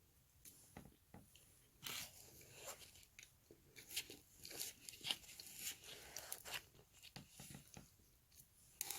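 Faint chewing and mouth sounds of someone eating frosted birthday cake, heard as scattered soft clicks and smacks.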